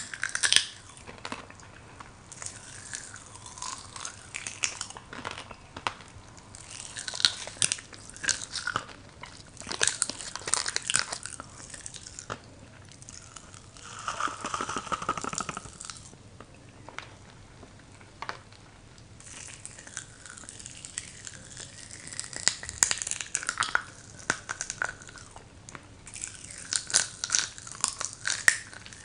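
Popping candy crackling and snapping in the mouth: irregular sharp little pops and clicks over wet chewing sounds, with a light rustle of the candy sachet. About halfway through there is a denser stretch as more candy is tipped in from the sachet.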